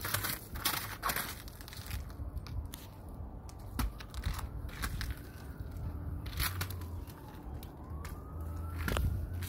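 Footsteps in snow, a handful of irregular steps. A distant siren faintly rises and falls in the second half.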